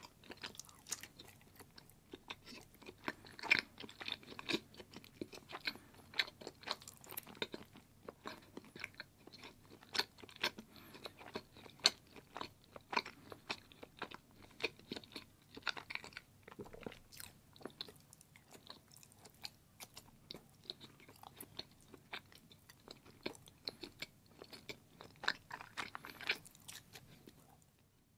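A person chewing and biting into a thick block of orange cheese: a steady run of many short mouth clicks and smacks, with no talking.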